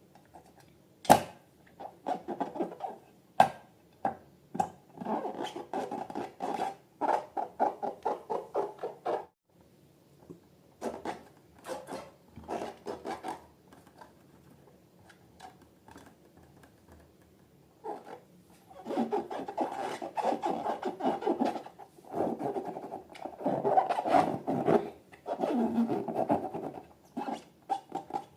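Slime being squeezed and worked by hand: runs of rapid sticky crackles and squelches, busy for the first third, sparse in the middle, then dense again near the end.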